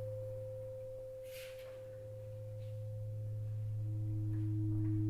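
Ambient drone soundtrack of sustained pure tones. A low steady tone holds throughout, while a higher tone fades away and a new middle tone comes in about four seconds in.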